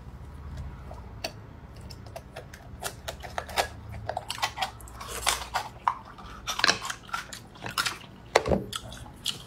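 Close-up wet eating sounds of raw oysters being chewed, with many short sharp clicks and smacks that grow denser and louder in the second half.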